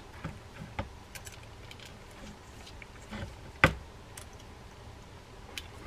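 A few faint clicks and one sharper click about three and a half seconds in: small metal parts of an Abu Ambassadeur 5600SX baitcasting reel being handled as the tie-down collar is fitted over the handle's cap nut.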